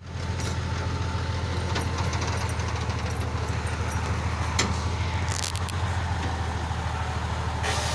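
Diesel engine of a truck-mounted crane running steadily, with a short hiss a little over five seconds in.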